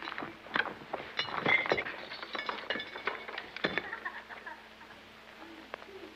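A rapid run of clinks and clattering knocks, some with a short ring, that thins out and dies away after about four seconds.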